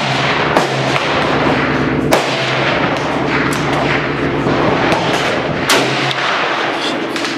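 Gunshots at a shooting range: several sharp reports at irregular intervals, over a steady hum and noise.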